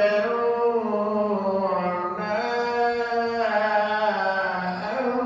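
A man chanting the Quran in slow, melodic tajweed style. He draws out long held notes in two phrases, with a brief break about two seconds in.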